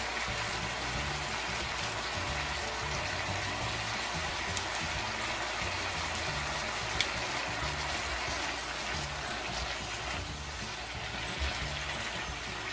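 Beef strips in a little sauce sizzling steadily as they sear in a nonstick skillet, with soft background music underneath.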